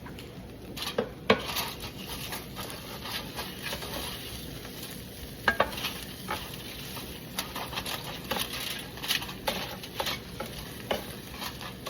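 Hot food sizzling in a pan while a metal utensil stirs and turns it, with repeated clicks and scrapes against the pan; the sharpest knocks come about a second in and again near the middle.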